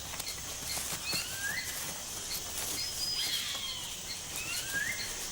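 Rainforest birds calling with rising and falling whistled notes over a steady high insect hiss, with a regular series of short high pips and scattered faint clicks.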